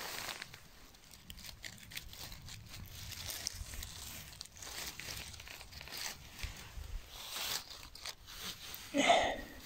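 Dry fallen beech leaves rustling and crackling in short, irregular bursts as a hand sifts through the leaf litter, with a brief louder sound about nine seconds in.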